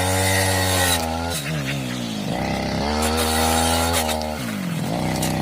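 Brush cutter engine, fitted with a round saw blade, running at high throttle while cutting rubber tree saplings. Its pitch drops twice, about a second in and again near the end, and climbs back each time.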